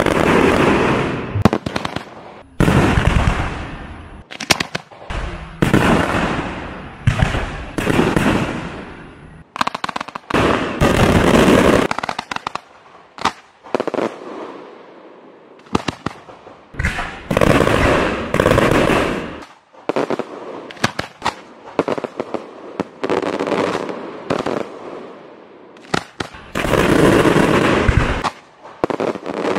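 Fireworks display going off: loud bursts one after another, each dying away over about a second, with quick runs of sharp crackles between them.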